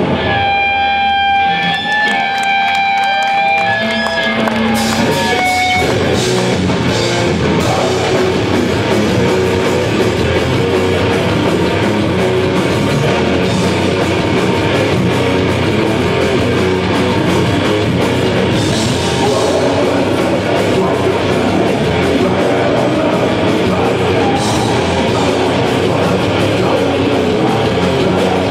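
Live heavy metal band played loud through a venue PA: a few long held electric guitar notes ring for the first several seconds, then the drum kit, bass and distorted guitars come in together about six seconds in and keep going.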